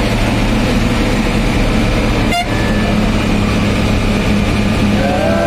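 Steady drone of a vehicle's engine and road noise heard from inside the cab while driving.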